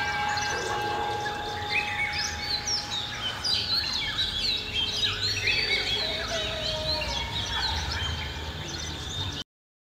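Several small birds chirping and calling over one another, with many short quick chirps, over a low background rumble. Steady ringing tones, like a wind chime, fade out in the first second or so, and all sound cuts off suddenly near the end.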